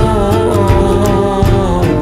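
Country-style outro song with guitar and drums; a sung note is held with a wavering pitch and ends about one and a half seconds in.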